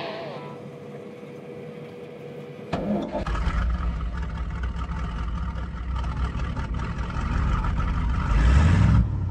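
A large farm-machine engine starts abruptly about three seconds in and runs with a heavy low rumble, revving up near the end.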